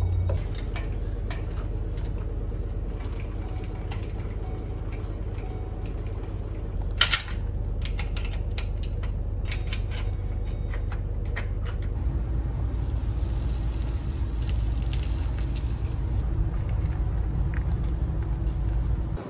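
Boat-trailer coupler and safety chains clinking and rattling as the trailer is hitched to a tow ball, with a sharp metallic clank about seven seconds in, over a steady low hum.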